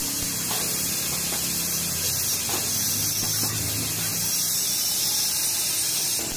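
Manual stick (arc) welding on a steel sheet gate frame: the electrode's arc gives a steady frying hiss, which cuts off near the end.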